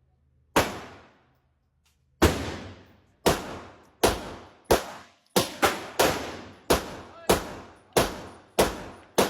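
Gunshots at a shooting range: about thirteen single shots fired at an uneven pace, some in quick pairs. Each crack is followed by a short echoing tail.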